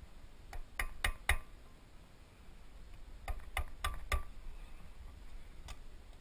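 A mallet tapping a wooden block held against a cotter pin leg at a propeller shaft's castle nut, bending the pin over. There are two quick runs of about four sharp taps, each tap with a short ring, then a single tap near the end.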